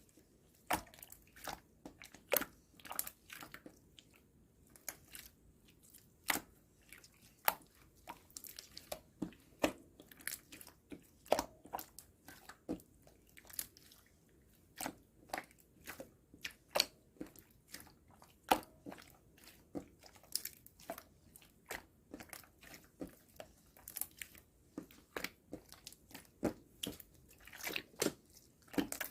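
Pink slime mixed with little round clay balls being pressed and squished by hand, giving irregular sharp popping clicks, several a second.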